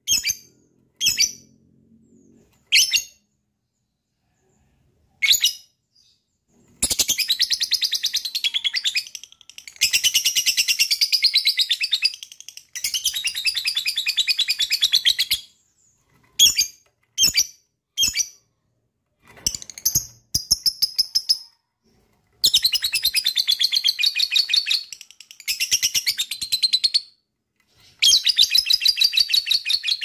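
Lovebird giving its 'ngekek': long runs of rapid, harsh chattering calls lasting two to three seconds each, broken up by single sharp chirps.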